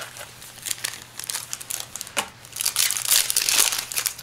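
Foil Yu-Gi-Oh booster pack wrappers crinkling as a pack is pulled from the box and torn open. The crinkling is a run of crackles, densest and loudest for about a second past the middle.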